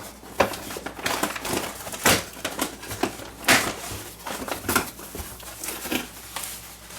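Product packaging being handled and opened by hand: irregular crinkling and clicking, with sharper crackles about two, three and a half and just under five seconds in.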